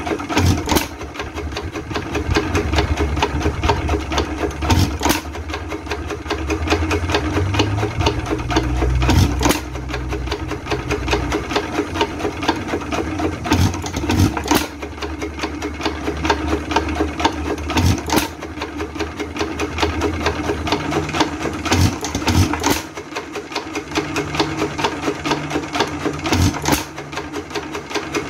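Associated Chore Boy single-cylinder hit-and-miss engine running: a fast, steady mechanical clatter of the valve gear and spinning flywheels as it coasts through long miss cycles. Sharp firing strokes come only every few seconds, sometimes two close together.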